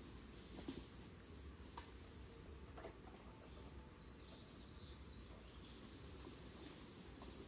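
Faint outdoor ambience: insects chirping in the background, with a few short clicks or snaps scattered through.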